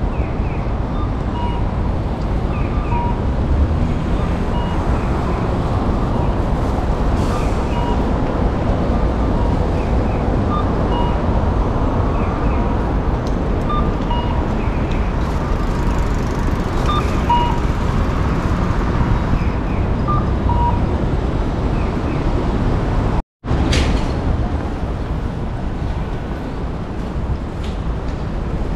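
Evening city street ambience: a steady wash of traffic noise with short high beeps recurring every second or so. The sound cuts out for a moment about 23 seconds in.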